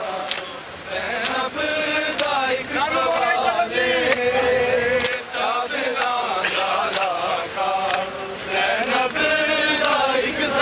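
A crowd of men chanting a noha, a Shia lament, in unison. Sharp slaps of palms striking bare chests (matam) come about once a second, in time with the chant.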